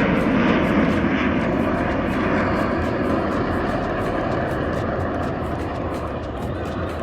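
Jet noise from Aermacchi MB-339 jet trainers flying past: a loud, steady rushing sound that slowly fades as they move away.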